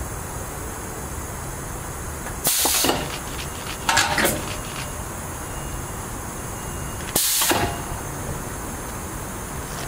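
Coupled Stadler Tango DT8.12 light-rail cars standing with a steady electrical hum. Their pneumatic system gives two short bursts of compressed-air hiss, with a rattle of clicks and clanks between them, as the train is readied for uncoupling.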